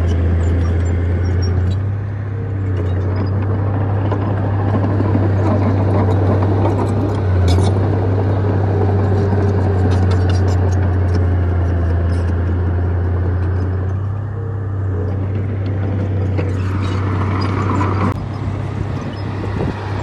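Heavy diesel engine of earthmoving machinery running with a steady low drone, with scattered clanks and rattles over it and a brief higher-pitched sound near the end.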